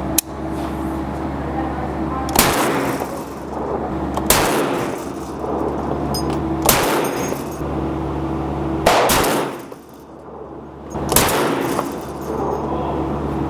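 Rifle fired five times, about one shot every two seconds, each report ringing briefly, over a steady low hum.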